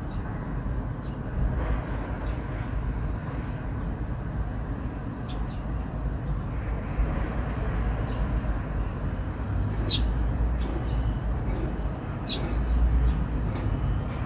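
Eurasian tree sparrows giving short, high chirps a few times, scattered singly and in pairs, over a steady low outdoor rumble.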